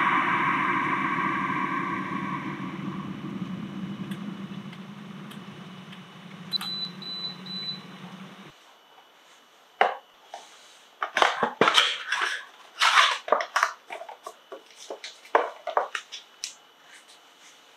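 Electrolux electric kettle heating water, a rushing noise that fades over several seconds; a high beep sounds about six and a half seconds in, and the kettle's noise cuts off suddenly about two seconds later as it finishes heating. Then crinkling and rustling from a paper tea-bag sachet being handled.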